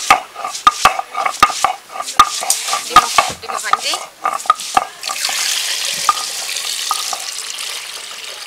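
Garlic crushed with a stone roller on a flat grinding stone (shil-pata): repeated knocks and scrapes of stone on stone. About five seconds in, it gives way to water pouring steadily into an aluminium pot of eggs.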